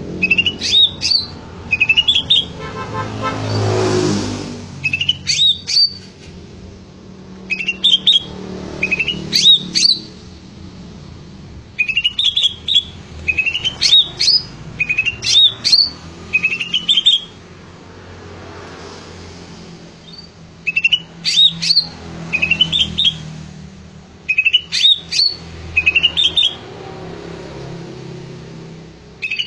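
Greater green leafbird (cucak ijo) in full song ('gacor'): short bursts of quick, sliding whistled notes, repeated every second or so with brief pauses. A motor vehicle passes in the background during the first few seconds.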